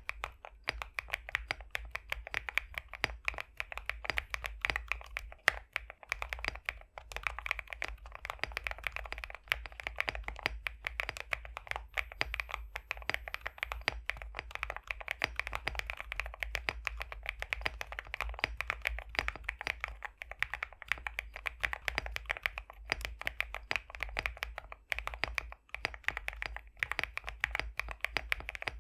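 Steady, fast typing on a 65% custom mechanical keyboard (Epomaker x Createkeebs High65 v2) with pre-lubed BSUN X linear switches: a dense run of deep, soft keystroke clacks, the build's "thocky & creamy" sound. The typing pauses briefly twice.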